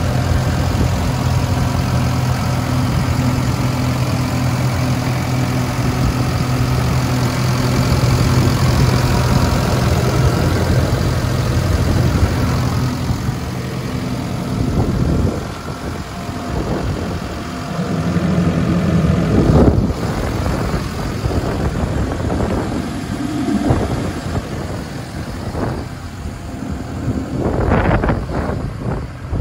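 Ravo 540 STH street sweeper's engine idling steadily. About halfway through the hum becomes fainter and uneven, and handling noise and several thumps take over; the loudest thump comes about two-thirds of the way in.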